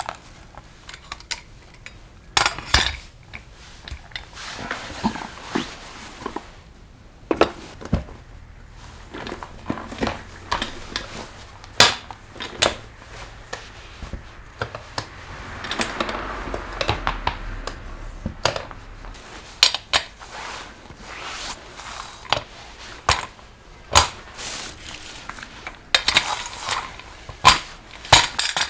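Hard objects being handled: irregular clinks and knocks, with stretches of rubbing noise between them.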